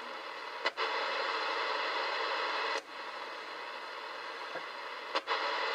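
AOR AR8600 communications receiver, in AM mode at 20 MHz, hissing through its speaker as a homebuilt RF noise generator is switched on and off. The hiss jumps louder with a click about a second in, drops back with a click near three seconds, and comes up again near the end.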